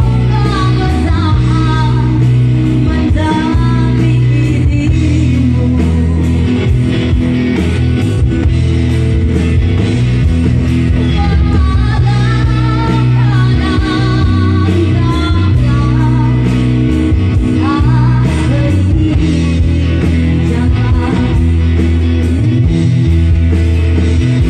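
Live pop-rock band playing: a woman singing over guitar, bass guitar and percussion with cymbals, loud and steady with a strong bass line.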